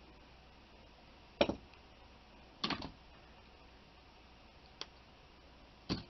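Four short, sharp clicks and taps of small metal jewelry parts and pliers being handled on a cloth-covered work table, the first the loudest.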